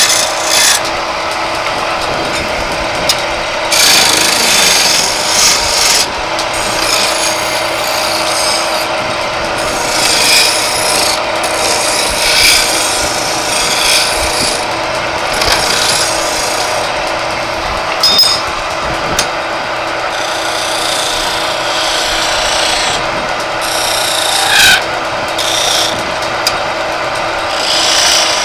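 Wood lathe running with a steady hum while a hand-held chisel cuts a spinning wooden charpai leg, the scraping of the cut coming and going in repeated bursts as the tool is pressed in and eased off.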